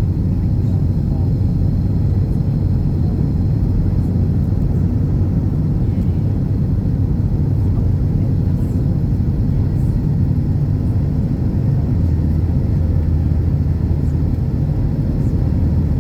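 Jet airliner during takeoff, its engines and airflow giving a loud, steady low rumble.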